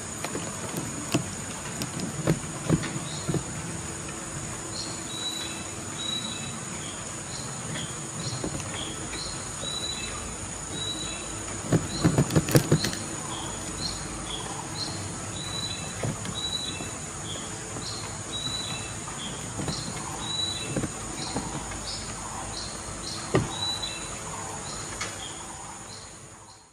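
Insects droning in a steady, high, even buzz. From about five seconds in, a short high chirp repeats every half second or so, and scattered knocks are heard, the loudest a quick cluster around the middle.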